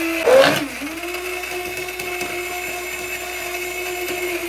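Electric immersion blender running in a plastic beaker, blending eggs with salt and sugar for mayonnaise. Its motor whines at a steady pitch, briefly louder and shifting in pitch about half a second in before settling.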